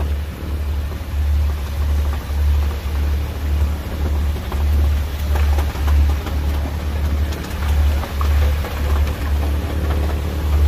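Fishing boat's engine running with a low, pulsing throb, about two beats a second, over wind and water noise.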